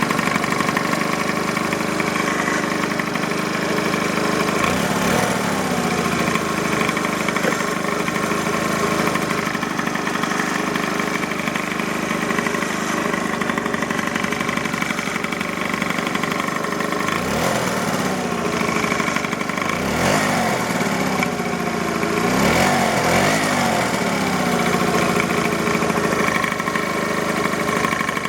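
Yamaha Jog scooter engine idling, blipped up in brief revs a few times, with a knock from the right side of the engine that the owner cannot identify.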